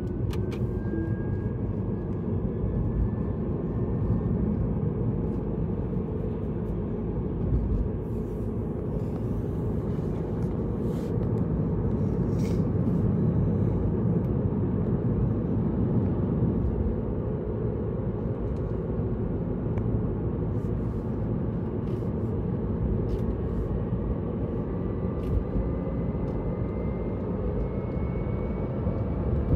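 Car driving at steady speed: a low road and engine rumble, with a faint whine that slowly rises in pitch.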